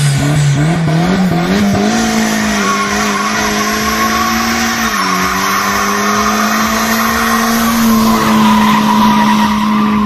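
Turbocharged VW Gol 1.8 engine revved up and held at high revs while its front tyres spin and squeal in a smoky burnout. The revs climb over the first couple of seconds, dip briefly about halfway through, then hold steady.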